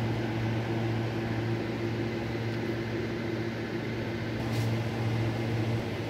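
Steady low mechanical hum of supermarket refrigerated display cases and ventilation, a machine drone with no other sound standing out.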